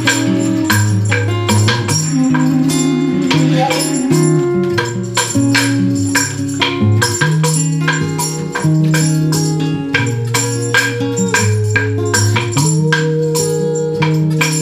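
Devil stick being struck by its handsticks, sharp percussive clacks several times a second in a quick rhythm, over music with long held bass notes.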